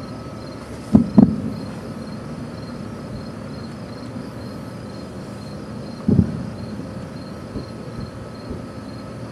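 Distant aerial fireworks shells bursting: two booms close together about a second in and another about six seconds in, each trailing off in a short echo. Crickets chirp steadily underneath.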